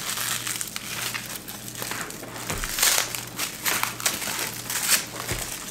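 White tissue-paper wrapping crinkling and rustling in irregular bursts as it is pulled off the handle and hardware of a new leather handbag.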